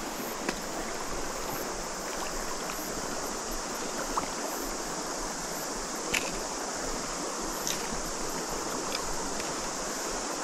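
Shallow river running over stones, a steady rush of water with a steady high hiss above it. A few faint ticks sound over it.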